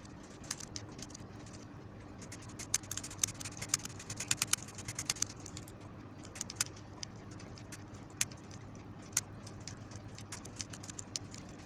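Push-button input selector switches on a MOSFET amplifier clicking as they are pressed over and over, in quick runs of clicks near the middle and scattered single clicks later, working sprayed dust cleaner into dirty switch contacts.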